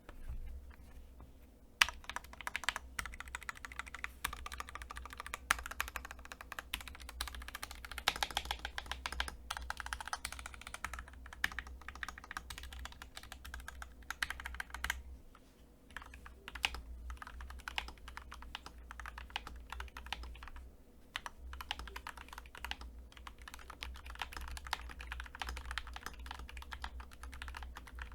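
Fast, continuous typing on a Gamakay LK67 custom mechanical keyboard with hand-lubed switches and stabilizers, a clacky keystroke sound with some ticking from the stabilizers. It pauses briefly about halfway through and again a little later.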